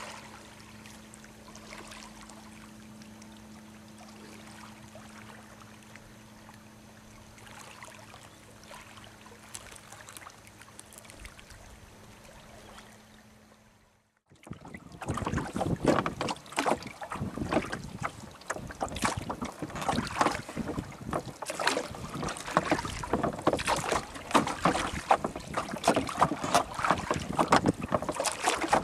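A faint, quiet background of calm water at a pebble shore with a low steady hum, dropping to silence about halfway through. Then strong, gusty wind buffets the microphone in a small open boat under way on the water, much louder and irregular.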